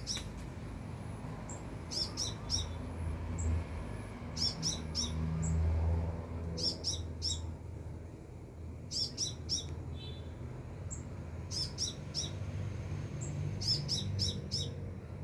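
A sunbird (locally called kolibri) calling in short, high chirps. The chirps come in quick bunches of two or three, repeated about every two seconds.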